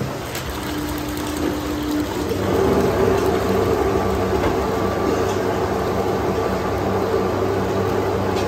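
A machine's steady hum. It swells to a louder, fuller hum about two seconds in and then holds steady.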